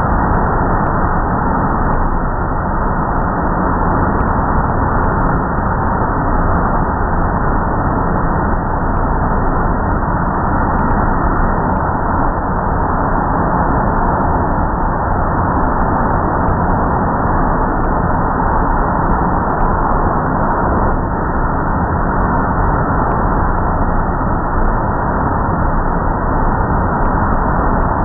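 Automatic car wash running with a car in the bay: a loud, steady machine rush that holds unchanged throughout.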